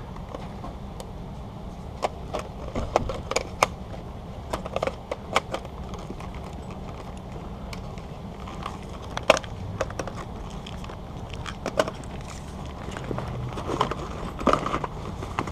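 Handling noise: a plastic camcorder and its padded camera bag being turned over and rummaged through by hand, giving scattered clicks, taps and rustles over a steady low background hum.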